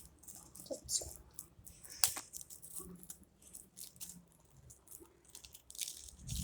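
Plastic packaging being handled and opened by hand: scattered crinkling and small clicks, with one sharp click about two seconds in.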